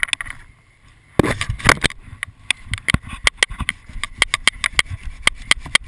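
Branches and twigs of a fallen tree cracking and rustling as they are pushed and handled close by. After about a second of near quiet, a quick, irregular run of sharp snaps and clicks begins and goes on.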